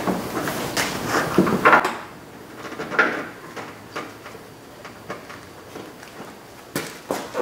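Plastic headlight assembly knocking and rattling against the car's front end as it is worked down into place, with clusters of knocks in the first two seconds and again about three seconds in, then a few sharp knocks near the end.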